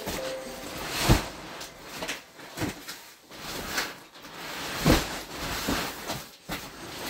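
Cardboard boxes being shifted and set down by hand: a string of irregular dull thumps with rustling and scraping between them, roughly one a second, the loudest a little after one second in and again near five seconds.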